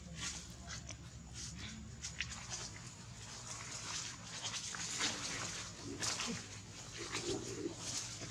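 Macaques vocalising: many short, high-pitched squeaks in quick succession, denser and louder in the second half.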